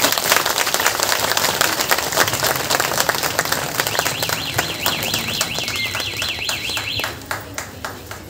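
Crowd applauding, many hands clapping fast and densely, thinning out near the end. From about four to seven seconds in, a high warbling tone wavers quickly up and down over the clapping.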